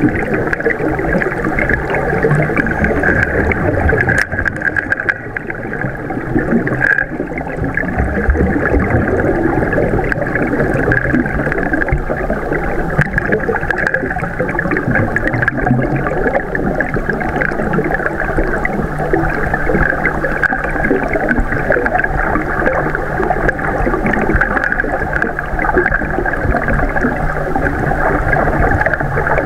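Steady rushing water noise picked up underwater by a camera, with a low steady hum joining about halfway through.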